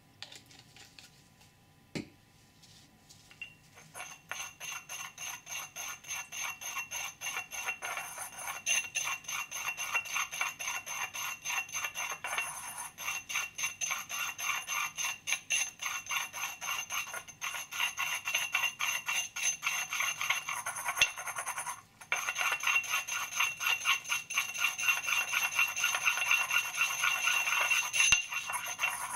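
Pestle grinding pigment paste in a white ceramic mortar: a fast, steady train of scraping clicks with a bell-like ring, starting about four seconds in and breaking off briefly near the end. A single knock about two seconds in.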